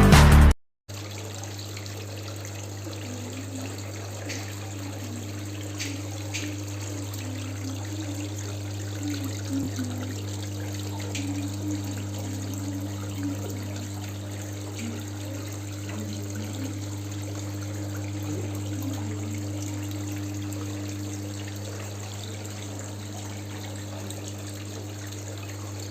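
Water pouring steadily from a decorative water-wall pool waterfall, splashing and trickling evenly, with a low steady hum underneath. Music cuts off right at the start.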